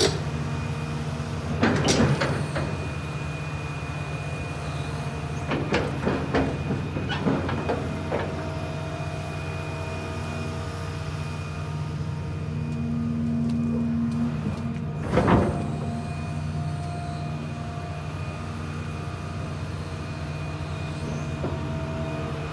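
Hitachi ZX350LC-3 long-reach excavator's Isuzu diesel engine running steadily, with a few sharp metallic knocks, loudest about two seconds in and again about fifteen seconds in.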